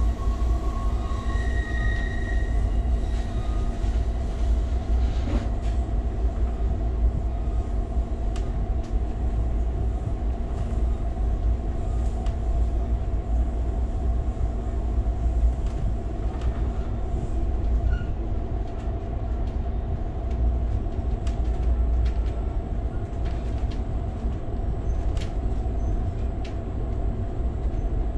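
Passenger train running at steady speed, heard from inside the car: a constant low rumble and hum with scattered faint clicks from the wheels and track. A brief high squeal sounds about two seconds in.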